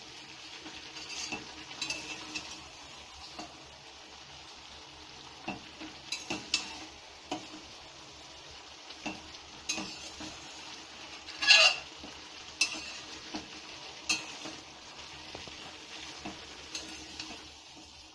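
Metal spatula stirring and scraping chicken pieces and masala in a metal kadai, with irregular clinks against the pan, the loudest about two-thirds of the way through, over a faint sizzle as the spiced chicken is sautéed (kosha).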